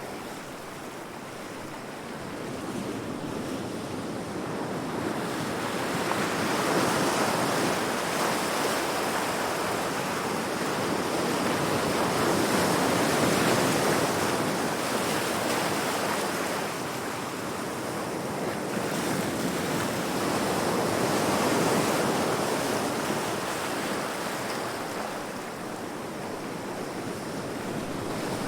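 Heavy ocean waves crashing against rocks: a continuous rushing surf that swells and eases in slow surges every several seconds.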